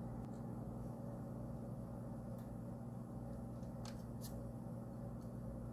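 Quiet room with a steady low electrical hum and a few faint light ticks, the clearest two close together about four seconds in.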